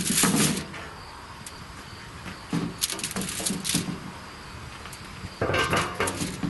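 Aluminium foil crinkling and rustling as it is handled, folded and pressed by hand, in three short bursts.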